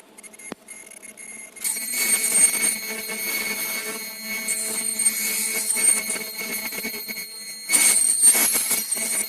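TC 200 15 kHz ultrasonic lace sewing machine running: a steady, high-pitched whine of several thin tones over a hiss, getting louder about a second and a half in and surging briefly near the end.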